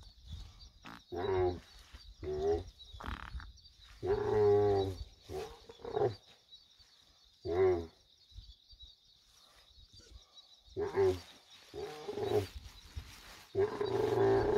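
A she-camel groaning in short, pitched calls every second or two, with a pause partway through, as her prolapsed uterus is pushed back into place by hand.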